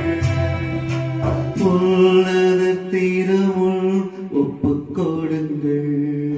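Devotional singing with electronic keyboard accompaniment: a voice holding long notes, changing every second or two, over sustained keyboard chords.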